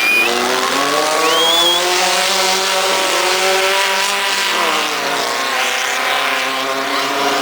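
A modified 1600 cc class race car's engine running hard, its pitch rising and falling as it revs and comes off the throttle, with a brief high squeal about one and a half seconds in.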